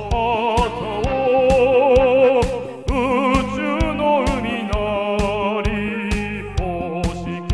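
A man singing karaoke into a microphone over a backing track with a steady beat, holding long notes with a wide vibrato.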